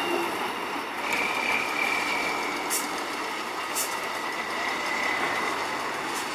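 Tatra 815 8x8 trial truck's diesel engine running under load as its big wheels churn slowly through loose sand, with a faint high whine. Three short hisses come through it.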